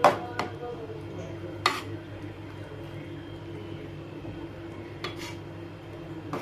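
Metal ladle stirring semiya upma in an aluminium kadai, scraping and knocking against the pan with four sharp clinks, the loudest right at the start, over a steady low hum.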